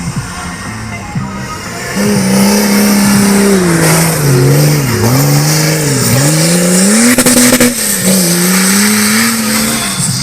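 Off-road competition vehicle's engine revving hard under load from about two seconds in, its pitch repeatedly dipping and climbing back as the throttle is worked, until near the end.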